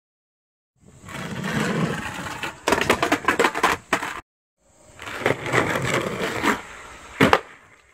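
Skateboard wheels rolling on rough concrete, with a quick run of clattering knocks from the board about three seconds in. After a short break the rolling resumes and ends in one sharp clack of the board near the end.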